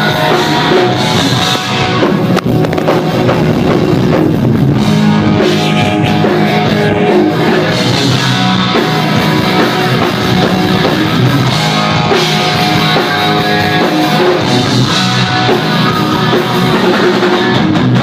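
Loud rock music with drums and electric guitar.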